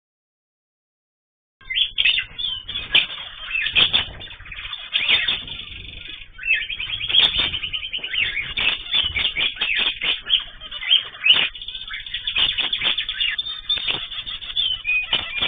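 A flock of cage birds chirping and calling in a busy, overlapping chorus, starting abruptly after about a second and a half of silence.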